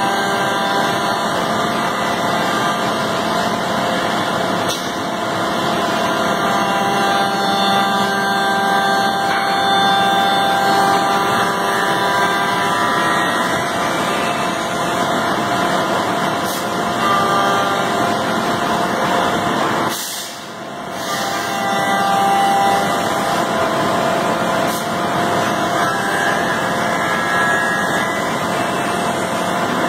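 Pade Velox five-axis CNC machining centre machining wood: a steady machine sound with many held tones, dipping briefly about twenty seconds in.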